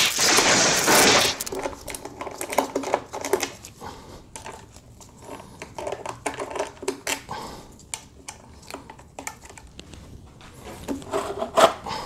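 Clicks, knocks and clatter of hand tools working the head bolts out of a Bosch Brute electric jackhammer and lifting off its plastic top cover, with a louder cluster of clatter near the end. A burst of hissing noise fills the first second or so.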